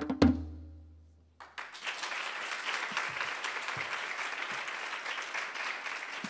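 Last stroke of a darbuka (goblet drum) solo ringing out and fading. After a brief silence, an audience starts applauding, about a second and a half in, and keeps clapping steadily.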